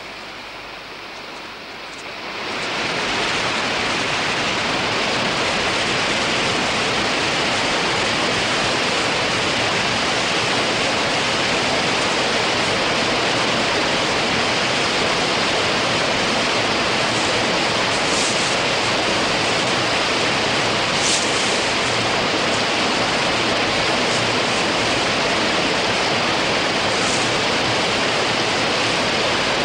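Fast-flowing river rapids: a loud, steady rush of white water, which comes up sharply about two seconds in and then holds level.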